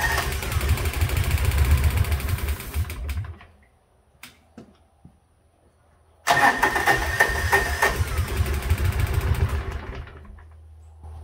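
Kawasaki Mule UTV engine turned over by its electric starter in two cranks of about three to four seconds each, with a pause between, without catching. A high starter whine sits at the start of each crank, and a faint low hum follows the second.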